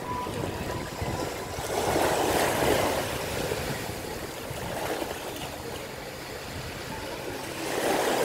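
Small sea waves lapping and washing in shallow water, a steady wash that swells louder about two seconds in and again near the end.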